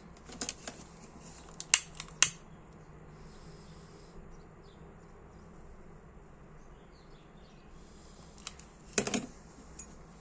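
Sharp clicks and taps from small metal lighter parts and hand tools being handled. There is a cluster in the first two seconds and another near the end.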